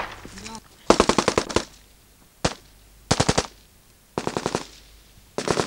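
Automatic rifle fire in short bursts of rapid shots, about ten a second, with a single shot between the first two bursts. Four bursts in all; the last starts near the end and runs on.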